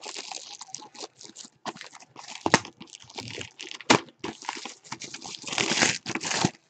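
Clear plastic shrink wrap crinkling and tearing as it is stripped off a cardboard trading-card box, in irregular rustles, with two sharp clicks about two and a half and four seconds in.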